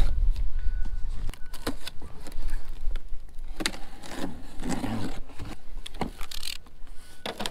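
A large cardboard box being opened: packing tape slit with a small blade, then the cardboard flaps pulled open, giving scattered scrapes, taps and rustles.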